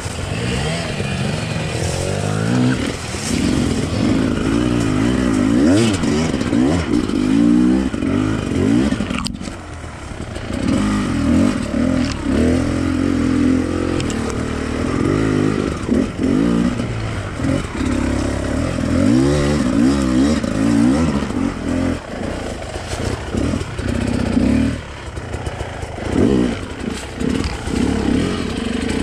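Enduro motorcycle engine being ridden off-road, its pitch rising and falling over and over as the throttle is opened and closed, with clattering over the rough ground.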